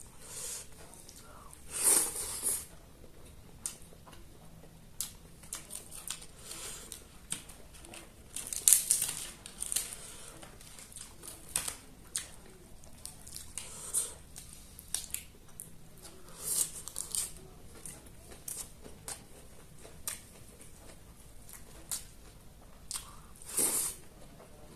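Close-miked eating sounds: irregular wet chewing, biting and tearing at chicken. The loudest bites come about two seconds in, around nine seconds in, and near the end.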